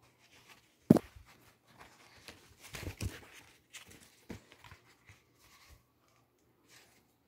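Clear plastic bag crinkling and rustling in short bursts as a fitted cap is pulled out of it and handled. A sharp knock about a second in is the loudest sound, with a second, smaller knock about four seconds in.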